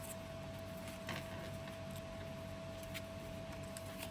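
Faint, soft handling of paper journal pages and cards, with a few light taps, over a steady faint hum.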